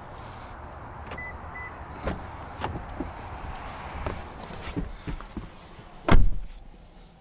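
Clicks and knocks of a car's driver's door being unlatched and opened, a person getting into the seat, then a loud solid thump about six seconds in as the 2020 Lexus ES 350's driver's door is shut. Two short high beeps sound about a second in.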